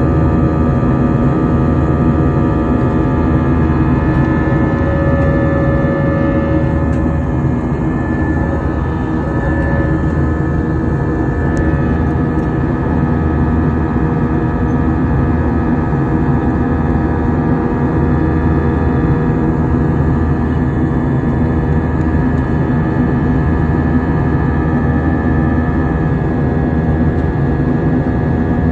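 Jet airliner engines running steadily, heard inside the passenger cabin: a loud, even rush of noise with several steady hums.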